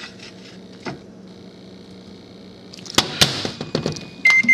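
A plate knocks lightly as it is set down inside a microwave oven. About three seconds in, the microwave door shuts with two sharp latch clicks, followed by light taps on the keypad and a single high electronic beep near the end as the cooking time is entered.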